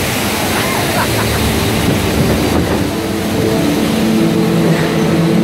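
Rushing, splashing water and the steady rumble of a log-flume boat riding along its water channel. About three seconds in, a few steady tones from the ride's soundtrack come in under the water noise.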